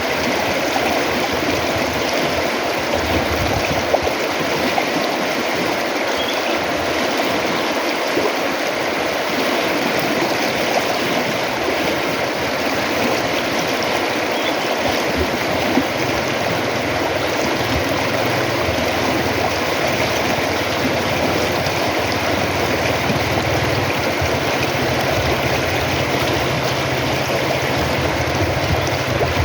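River water flowing steadily, an even rush of noise without a break; a low steady rumble joins about halfway through.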